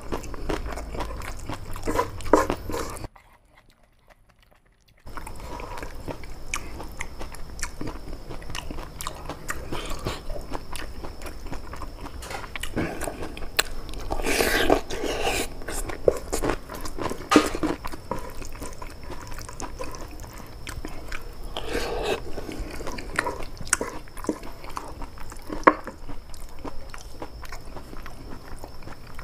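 Close-miked eating of boiled papaya stems in spicy peanut-chilli sauce: chewing, biting and wet mouth sounds with many small clicks. The sound drops to near silence for about two seconds early on, then the chewing resumes and is loudest about halfway through.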